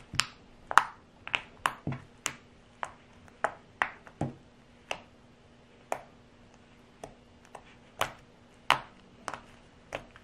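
Pink balloon slime being kneaded, poked and pressed by fingers, giving off a string of sharp, sticky clicks and pops at an irregular pace of about two a second.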